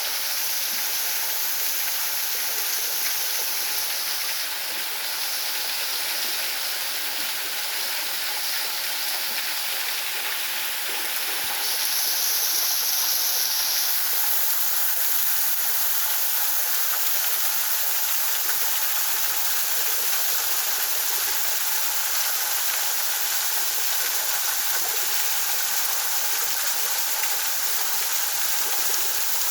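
River water rushing over rock at a small waterfall, a steady, even rush that grows a little louder about twelve seconds in.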